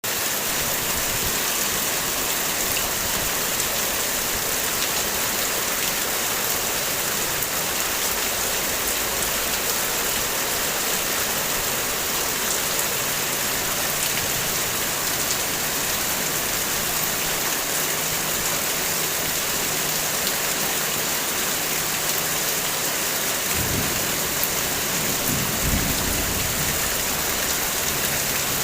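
Heavy rain falling steadily, an even dense hiss of drops. Near the end, two short low rumbles, like distant thunder, come through under the rain.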